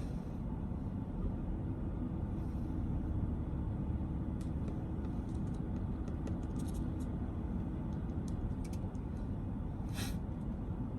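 Car engine idling steadily, a low rumble, with a few faint light clicks in the middle.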